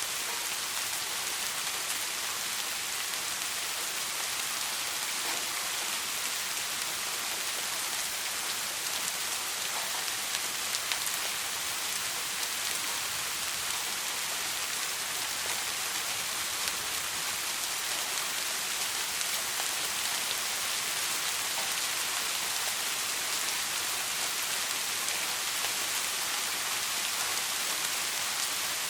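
Steady rain falling, an even hiss with fine patter of drops hitting a surface; no thunder.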